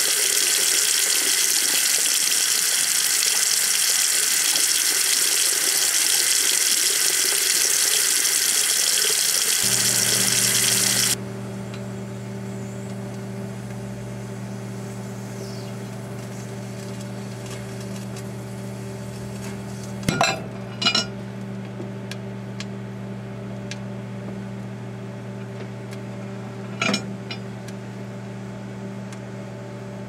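Tap water running hard into a sink, cut off suddenly about eleven seconds in. Then a Daewoo microwave oven's steady hum, with a few short sharp crackles from the salmon eggs burning inside, twice a little past the middle and once near the end.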